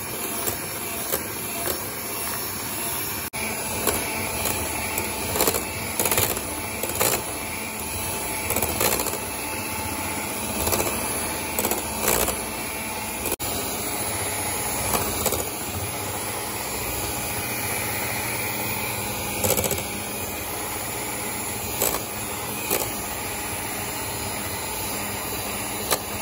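Electric mixer running steadily at top speed, its whisk beating a thickening zefir mass until it wraps around the whisk, with short sharp knocks every second or two.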